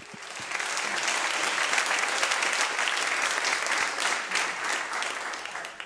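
Audience applauding. The clapping builds over the first second or so, holds steady, and dies away near the end.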